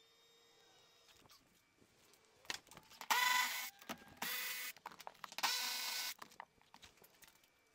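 Cordless power tool running in three short bursts, each about half a second, spinning out the front seat's 16 mm mounting bolts, with light clicks and knocks of the socket and seat hardware in between.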